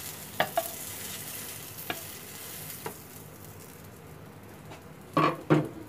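Butter and oil sizzling in a hot frying pan, a steady hiss that fades out about halfway through, with a few light clicks and two short knocks near the end.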